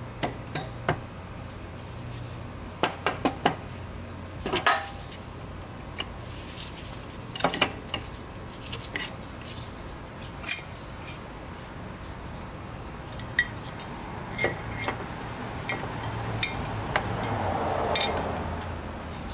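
Scattered metallic clinks and knocks as the cylinder of a Yamaha YFZ450 four-stroke single is handled and lifted up off the piston by hand, with a longer, louder noise near the end.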